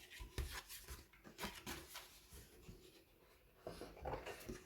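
Faint rustling and light taps of a folded paper or card backdrop being handled and unfolded.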